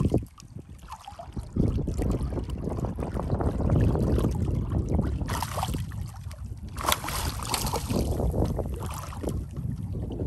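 Wind buffeting the microphone over water, with splashing as a hooked sheepshead thrashes at the surface beside the boat. The louder splashes come about five and seven seconds in.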